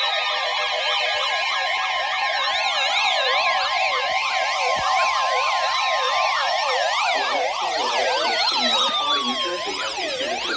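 Several electronic siren tones layered at once as the alarm ahead of an Emergency Alert System warning: fast up-and-down wails with a few long, slowly falling tones mixed in.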